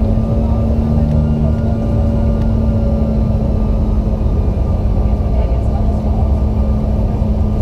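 Inside the cabin of a Bombardier CRJ-900LR, its rear-mounted General Electric CF34 turbofan engines run steadily: a loud, even rushing hum with a few steady whining tones on top.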